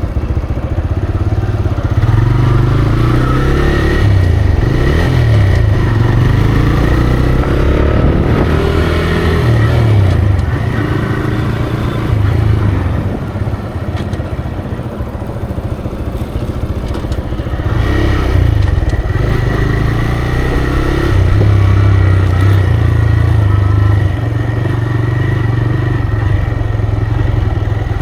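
TVS Raider 125's single-cylinder engine running through its stock exhaust while being ridden, the pitch rising and falling with throttle changes. About halfway through it eases off and goes quieter, then picks up again and holds a steady note.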